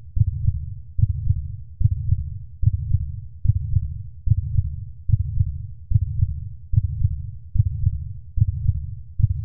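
A deep, slow heartbeat pulse of single low thumps, each fading before the next, repeating steadily at about seventy a minute.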